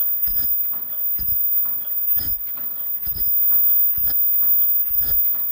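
Disposable face mask making machine running in a steady cycle: a thump with a metallic clatter and a short high squeak repeats about once a second as its heads stroke.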